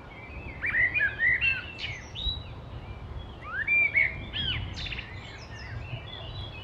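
Small birds chirping and tweeting in a background nature ambience, short rising and falling chirps in scattered clusters over a low steady hiss.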